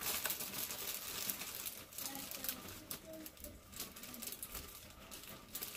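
Butter crackling and sizzling as it melts in a hot frying pan: a steady hiss dotted with sharp pops.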